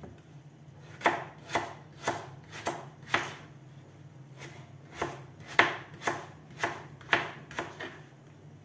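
Kitchen knife chopping raw potato into small cubes on a plastic cutting board: sharp strikes about two a second, in two runs with a pause of about two seconds between them.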